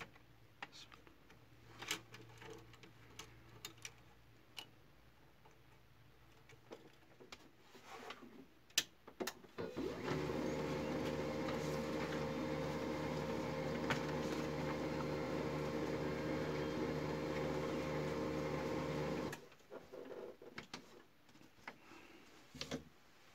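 HP LaserJet 3055 MFP laser printer running a test page, its pickup gears and solenoid freshly repaired: scattered clicks, then about ten seconds in the motor and gear train start a steady hum with a few even tones. The hum runs for about nine seconds and cuts off suddenly, followed by a few more clicks.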